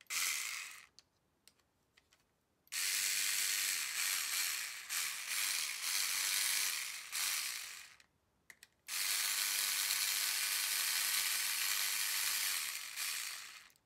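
Small cordless electric screwdriver running in three spells as it backs the motor screws out of an RC crawler's transmission: a short burst at the start, a run of about five seconds that stutters, then a steady run of about four seconds.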